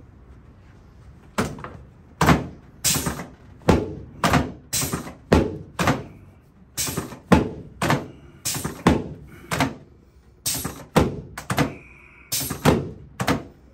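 A chiropractor's stacked hands thrusting down on a patient's lower back on a padded chiropractic table, a sharp thunk with each thrust. About twenty of them come in quick runs with short pauses, roughly two a second.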